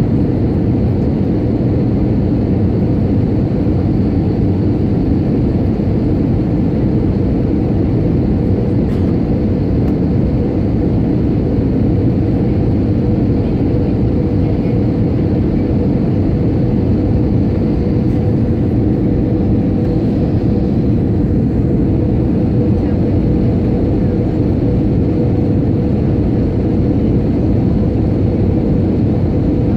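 Steady cabin noise inside an Airbus A320 on approach to land: a loud, even drone of the engines and rushing air, with a faint steady tone running through it.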